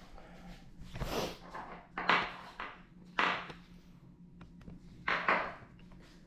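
Four short bursts of rustling and clattering handling noise, with a few small clicks between them, as loose parts such as wheel nuts are handled and put away.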